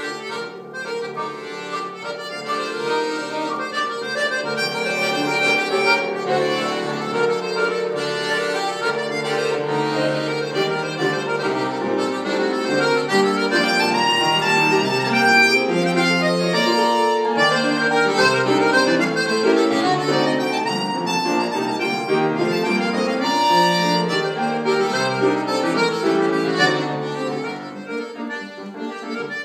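Solo piano accordion playing a tune: a moving melody over sustained chords, with no pause.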